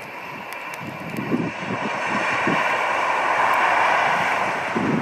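Diesel High Speed Train led by a Class 43 power car approaching and passing at speed: a rushing sound that builds to its loudest about three to four seconds in. Wind buffets the microphone throughout.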